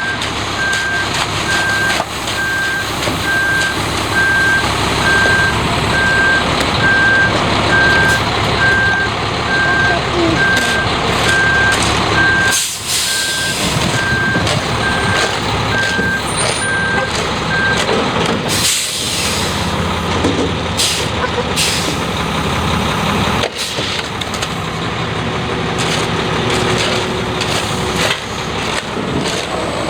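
Concrete mixer truck running, its reverse alarm beeping steadily at a little over one beep a second until about two-thirds of the way through, then stopping. A short burst of hiss follows the last beeps.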